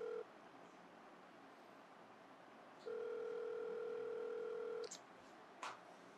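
Telephone ringback tone heard on a mobile phone held to the ear, the sign that the called phone is ringing and has not been answered. A steady low beep ends just after the start and sounds again for about two seconds from about three seconds in. A faint click comes near the end.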